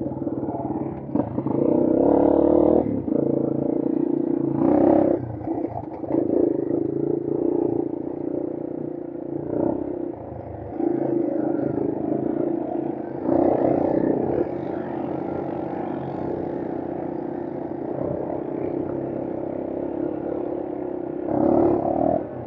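Brozz 250's engine running under way, steady with the throttle swelling and easing several times, loudest about two seconds in and again near five, thirteen and twenty-one seconds.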